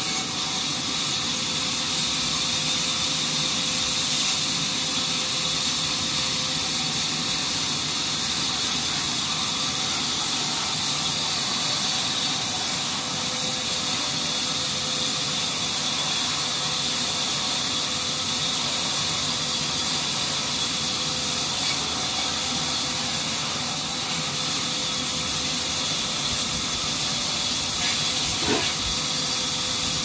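Horizontal band sawmill running and cutting through a teak log: a steady hissing saw noise over a constant hum from the drive. A brief knock near the end.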